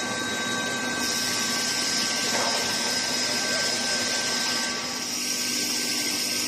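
Steady machine noise of a thick-wall steel pipe induction tempering line running, with several steady whining tones over a hiss; a high-pitched whine comes in about a second in.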